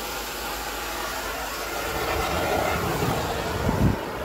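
Propane hissing from a griddle's curved pipe burners, with a deeper rumble building about halfway and a short low thump just before four seconds in as the burners light.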